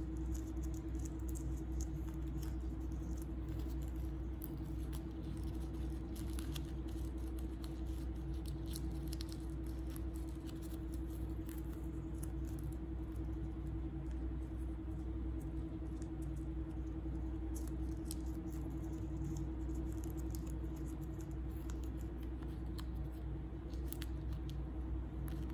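Faint rustling and small ticks of a strip of magazine paper being rolled back up between fingers, over a steady low hum with a constant tone.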